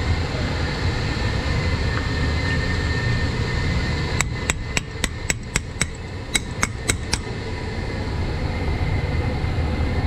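Sharp metal-on-metal taps from a wrench knocking on the pump's pipe flange fitting to work the joint apart: about eleven quick strikes in two runs, a little after four seconds in. A steady low machine-room hum sits underneath.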